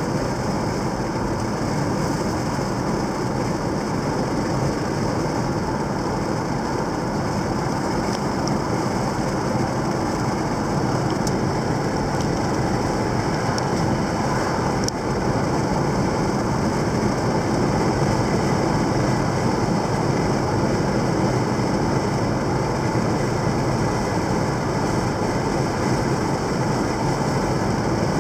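Steady road noise of a car driving at an even speed on pavement, heard from inside the cabin: tyre and engine noise.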